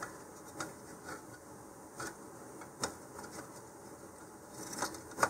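Faint handling noise of fingers tying half-hitch knots in Kevlar shock cord around a 3-D printed plastic part: soft rubbing with several small, irregular clicks.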